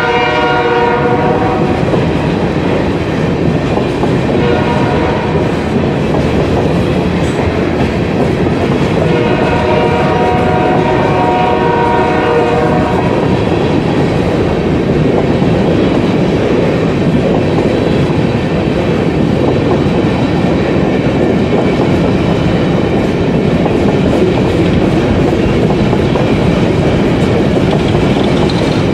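Freight train of coal cars rolling past close by, with steady wheel-on-rail noise. A multi-note train horn is still sounding as it begins and stops about a second in, then sounds again for about four seconds around ten seconds in.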